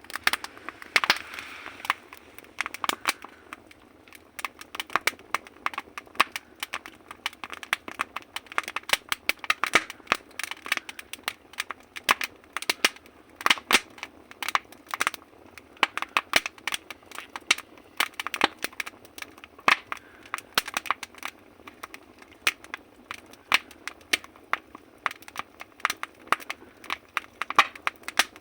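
Firewood burning in a stove, crackling with irregular sharp pops and snaps over a soft hiss of flame.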